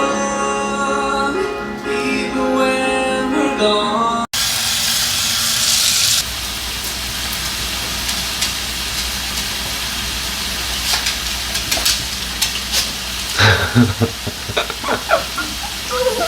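Background music for about four seconds, then after a sudden cut a steady sizzling of food cooking over heat, with scattered clicks and knocks of a utensil in the last few seconds.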